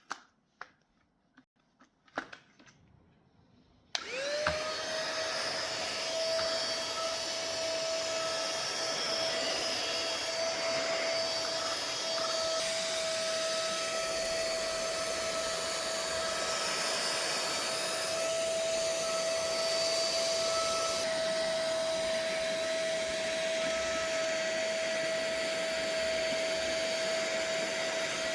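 A few clicks, then about four seconds in a cordless handheld vacuum cleaner is switched on: its motor spins up quickly to a steady high hum with the hiss of rushing air, and keeps running evenly.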